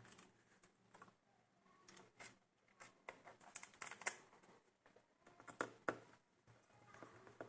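Faint, irregular light clicks and taps of laptop parts being handled, bunched into a few quick clusters.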